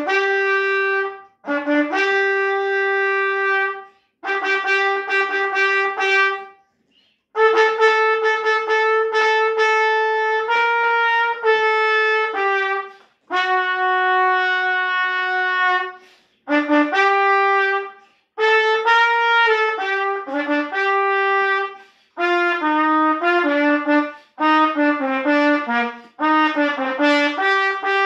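Solo trumpet playing a melody in short phrases of a few seconds each, separated by brief silent breaks. The notes change more quickly near the end.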